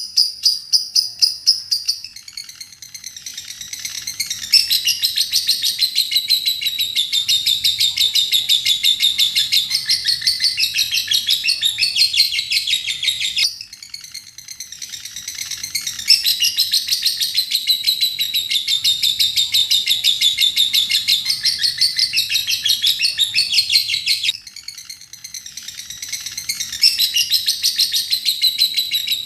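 Lovebird singing its long ngekek chatter, a rapid, unbroken stream of high shrill notes that runs for about ten seconds at a stretch. Twice it drops to quieter, sparser notes, then builds back into the full rattle.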